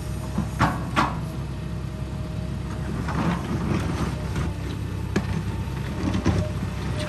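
Heavy construction machine's engine running steadily, with a few sharp knocks: two close together about a second in and more near the end.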